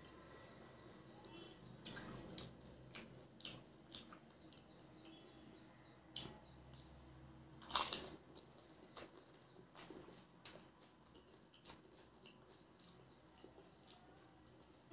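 Close-up mouth sounds of eating pani puri: wet chewing with small crisp snaps. About eight seconds in there is one loud crunching bite as a crisp puri shell full of spicy water goes into the mouth, followed by more wet chewing.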